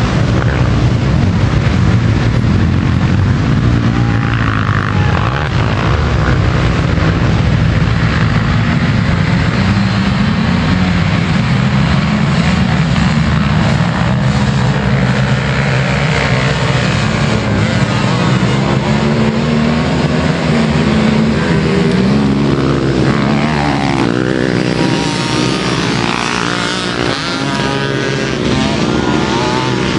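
Many youth racing ATV (quad) engines running together, revving hard as the pack launches and races away. Near the end, single quads pass close, their engine pitch sweeping up and down.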